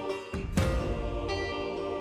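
Background music for a time lapse; a fuller low part comes in about half a second in.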